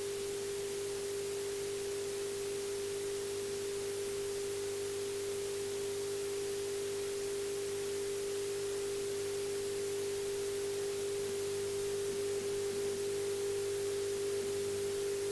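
A steady pure electronic tone of middle pitch, held unchanged over a faint hiss.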